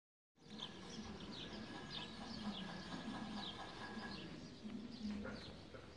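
Birds chirping faintly, starting about half a second in: a string of short calls that slide down in pitch.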